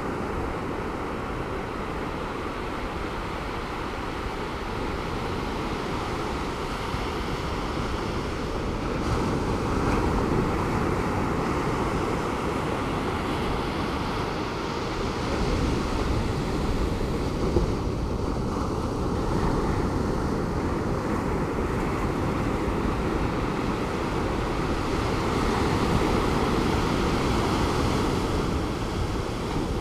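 Calm Pacific Ocean surf breaking and washing on a beach, a steady rush that swells gently every several seconds, with some wind on the microphone.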